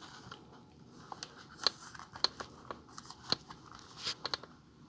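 Trading cards being handled: scattered light clicks, taps and crinkles, spread out with gaps between them.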